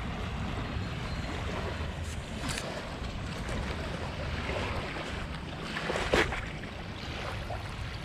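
Wind buffeting the microphone over small choppy waves lapping and sloshing, with a brief louder splash about six seconds in and a smaller one a few seconds earlier.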